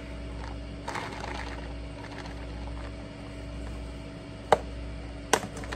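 Steady low hum, with two sharp clicks near the end, a little under a second apart; the first click is the loudest.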